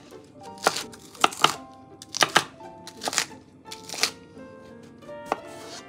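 Kitchen knife cutting through crisp leafy greens and striking an Epicurean wood-composite cutting board: about eight irregular chops, some in quick pairs, with soft background music underneath.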